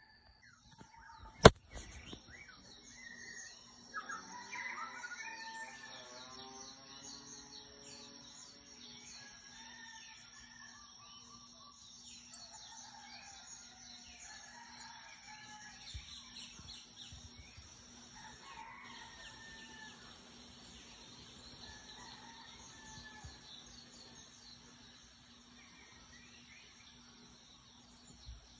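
Hawaiian dawn chorus of many birds chirping over a steady high trill of crickets. A sharp click comes about a second and a half in, and a rooster crows from about four seconds in.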